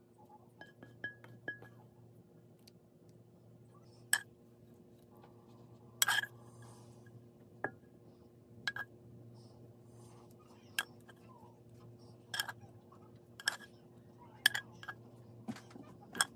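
Metal tongs and a pan clinking against a ceramic plate while food is laid on it: light taps at first, then sharp ringing clinks about once a second. A steady low hum runs underneath.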